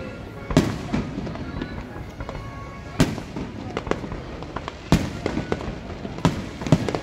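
Aerial fireworks shells bursting overhead: a few loud booms roughly two seconds apart, with smaller pops and crackling between them.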